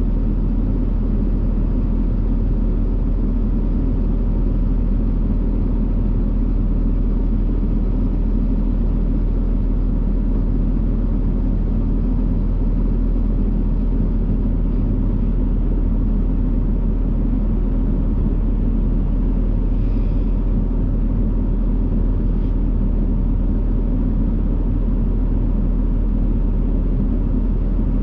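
John Deere 675B skid steer's diesel engine running steadily at a constant throttle, a loud, even low rumble.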